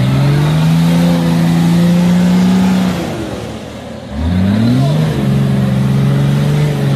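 Off-road 4x4's engine revved hard and held at high revs for about three seconds, then eased off. A second or so later it climbed again to high revs and held there. A steady rushing noise runs under the engine throughout.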